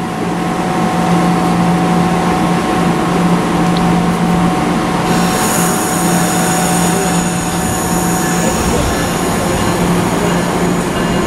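Amtrak Silver Star's Amfleet II coaches rolling past on the track, a loud steady rumble of wheels on rail. From about halfway through, a high thin wheel squeal joins in.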